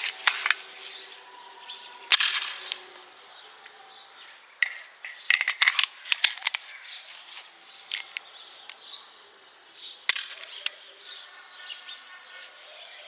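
Norinco NP42 9mm pistol being test-fired: a series of sharp cracks and clicks, irregularly spaced, the loudest about two seconds in with a short ringing tail, and a quick cluster a little past the middle.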